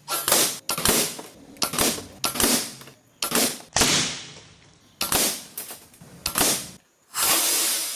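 Air rifle shots: a string of sharp reports, roughly one a second, some trailing off with an echo, the last one longer. The shots compare subsonic slugs at about 270 m/s with light pellets at about 300 m/s, fast enough to pass the speed of sound and give a loud crack that a suppressor cannot quiet.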